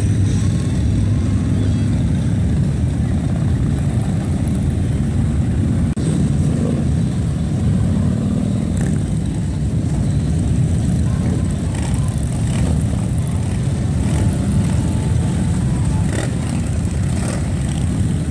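A continuous group of large cruiser and touring motorcycles, including a trike, riding past at parade pace. Their engines make a steady, deep, overlapping rumble with no break.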